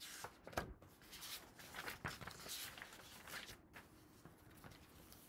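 Paper picture book being handled and opened: the cover and pages rustle and flap in irregular strokes, a few of them sharper and louder.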